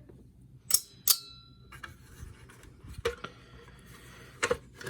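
Small metal parts clinking and knocking as a vacuum cleaner is taken apart by hand: two sharp clinks about a second in, the second one ringing briefly like a small bell, then a few duller knocks.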